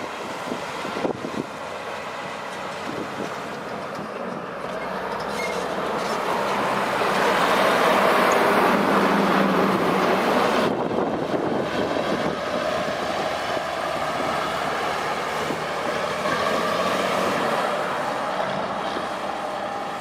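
Heavy road-construction machine running and moving, a dense mechanical rumble that grows louder over the first several seconds and then holds steady.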